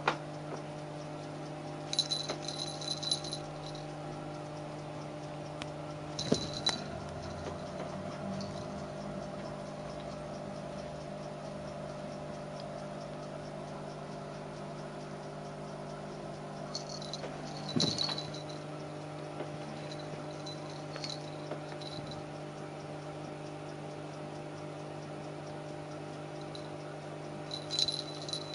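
A kitten wrestling a plush monkey toy: about four short bursts of rattling and scuffling, over a steady background hum.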